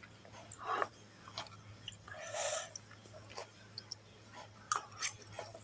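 Close-up mouth sounds of someone eating fried noodles: scattered wet clicks and smacks of chewing, with a longer hissing breath a little over two seconds in.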